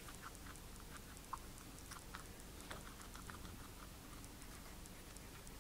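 Guinea pig chewing a salad of chopped carrot and lettuce: faint, quick crunching clicks, several a second.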